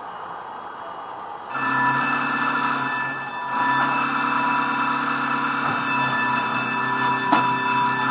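Tram wheels squealing against the rails: a steady, many-toned squeal that starts suddenly about one and a half seconds in and dips briefly once.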